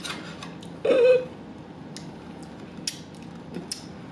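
Close-miked eating sounds: scattered small mouth clicks and smacks of a person chewing food, with a short hummed or voiced sound about a second in.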